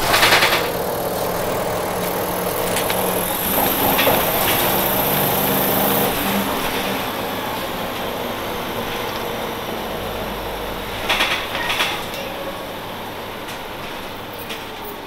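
1996 Nova Bus RTS-06 transit bus with its Detroit Diesel Series 50 engine and Allison automatic transmission, running and moving, with a steady drone and rattle. A high whine rises over the first six seconds. Two short loud bursts of noise come at the start and about eleven seconds in.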